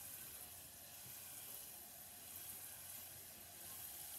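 Garlic cloves frying gently in oil in a small saucepan: a faint, steady sizzle.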